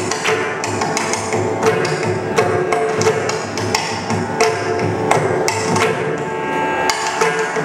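Ensemble of mridangams, the South Indian double-headed barrel drum, played together in a dense, fast stream of strokes, the tuned heads ringing with steady pitches under the sharp slaps.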